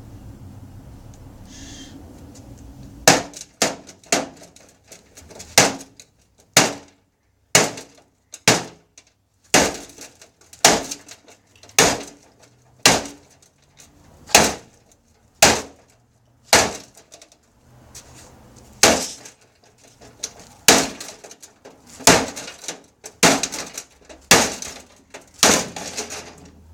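A hammer striking a microwave oven over and over, starting about three seconds in, at roughly one blow a second, each a sharp bang with a short rattle after.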